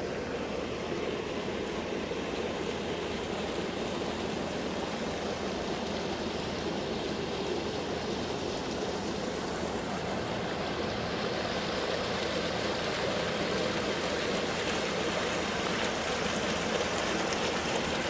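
Steady splashing of water from small bubbler fountain jets in a stone pool, growing a little louder toward the end.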